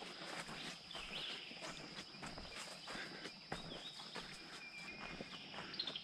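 Footsteps crunching on dry leaves and twigs along a forest trail, irregular and faint. A steady high insect drone continues throughout, with a few brief bird chirps.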